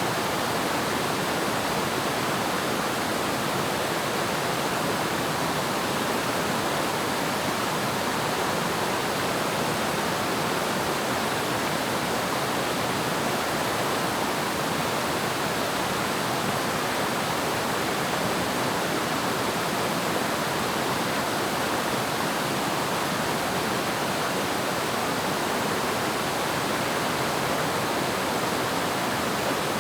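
Waterfall: water pouring and splashing in a steady, even rush with no breaks.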